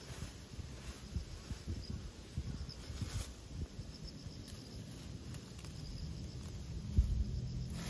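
Insects chirping in a faint, broken high trill over an irregular low rumble and bumps, with one sharp low thump about seven seconds in.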